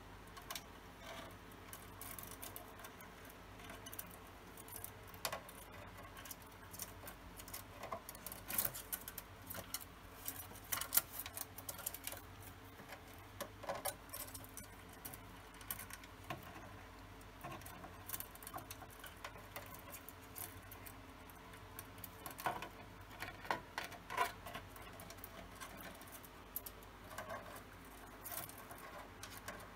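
Cockatiel pecking and nibbling at the plastic roof of a toy house: faint, irregular small clicks and taps, coming in louder clusters a third of the way in and again later on.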